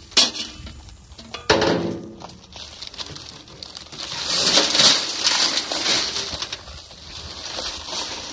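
A shovel blade strikes a paper bag of concrete mix in a steel wheelbarrow: a few sharp knocks, one about a second and a half in with a brief metallic ring. Then a long rustling hiss as the paper bag is handled and dry concrete mix spills into the barrow.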